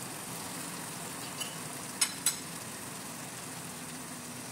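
Spice paste with tomato paste frying gently in oil in a pan, a steady quiet sizzle as it is sautéed. Two sharp clicks come about two seconds in.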